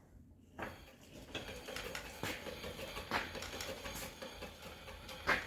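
Irregular light clicks and taps of something being handled, with a sharper knock near the end.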